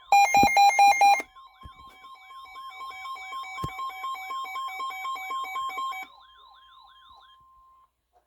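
Emergency alert tones: a loud, rapidly pulsing alert burst about a second long, then a warbling siren-like tone sweeping up and down about three times a second over a steady high beep. The warble stops a little after six seconds in, and the steady tone trails on alone a little longer.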